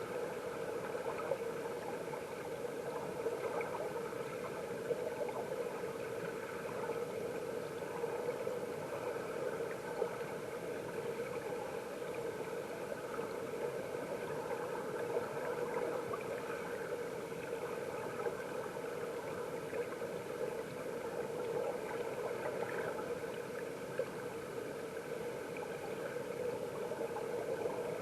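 Mountain stream water flowing, heard underwater: a steady, muffled rushing drone with faint scattered clicks and ticks.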